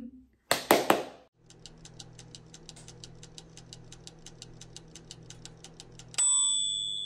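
SilverCrest two-slot electric toaster: a couple of clicks as it is set going, then a fast, even ticking of about six a second over a low hum while it heats. Near the end comes a sudden pop with a high ringing tone that fades slowly.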